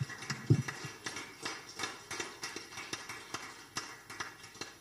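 Audience applauding in scattered claps that slowly thin out, then cut off sharply at the end.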